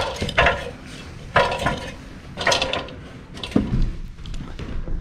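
Footsteps, about one a second, over a low steady rumble.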